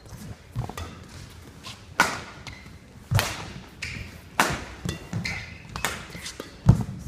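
Badminton rally: sharp cracks of rackets striking the shuttlecock about every second, with brief sneaker squeaks on the court and low foot stomps as players lunge. The loudest sound is a heavy thump near the end.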